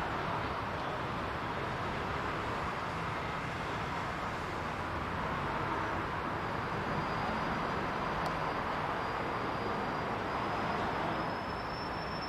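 A train running past: a steady rush of noise, with a faint high whine coming in about halfway through and rising slightly near the end.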